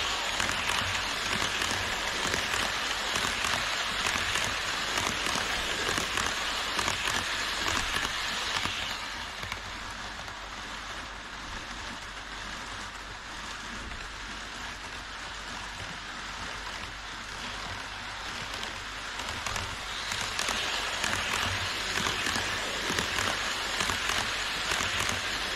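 HO scale model trains rolling on KATO Unitrack: a steady rattling hiss of metal wheels on rails and track joints. It is louder for the first several seconds and again over the last few, as the E5 series shinkansen set passes close by, and softer in between, when only the distant container train is running.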